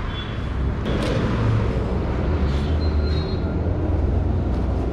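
Busy street traffic noise: a steady low rumble with a couple of sharp clicks about a second in.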